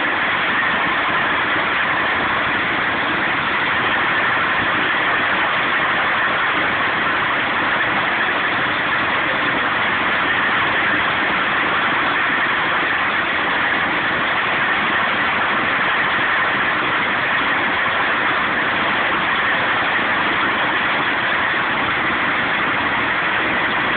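Old straw chaff cutter converted into a branch chipper, running steadily with a continuous mechanical noise as branches are fed into its feed rollers and cutter.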